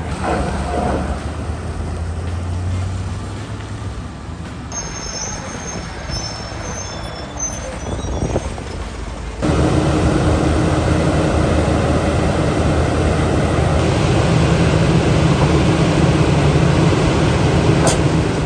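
Heavy diesel machinery running, with a thin high squeal from about five to eight seconds in. About nine seconds in the sound changes abruptly to louder, denser machine noise.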